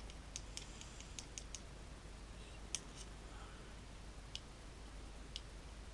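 Light, sharp clicks of a magnet touching small steel parts of a stripped gas blowback rifle as they are handled: a quick run of clicks in the first second and a half, then single clicks every second or so.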